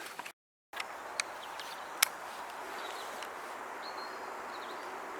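Quiet outdoor countryside ambience with a steady faint hiss, broken by a short cut to dead silence about half a second in. A few faint sharp clicks follow, and a brief high bird call comes about four seconds in.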